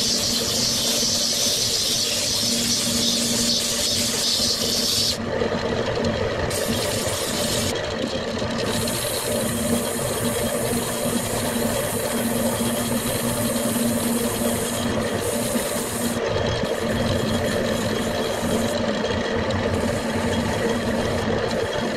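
Old Craftsman wood lathe running with a steady motor hum while sandpaper is held against the spinning maple cup. The sanding makes a rasping hiss that is heaviest for the first few seconds, then comes and goes.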